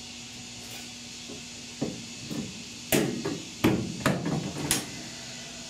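Knocks and clunks on sheet steel as a steel patch panel is worked into place in a pickup cab's inner roof: about six irregular hits, the loudest three close together past the middle, each with a short metallic ring.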